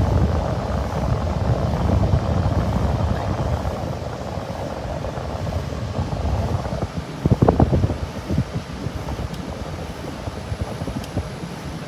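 1989 Carrier International window air conditioner running on high, its fan and compressor giving a steady rush with a deep rumble, the unit shaking as it runs. A few brief knocks or rattles about seven seconds in.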